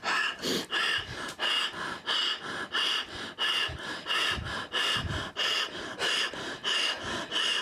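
A woman breathing rapidly and forcefully in an even rhythm, about two quick breaths a second: paced breathing while she is being stretched.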